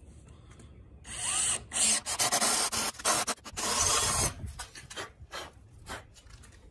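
A power drill boring a 1-inch spade bit straight down into a pine 2x4, a rough cutting grind that starts about a second in and lasts about three seconds. It is followed by several short knocks as the drilling stops.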